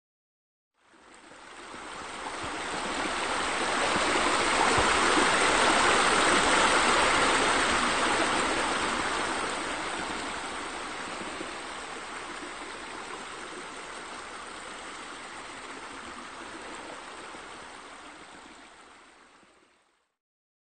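Running water, a steady rushing stream that fades in, swells to its loudest over the first several seconds, then slowly dies away.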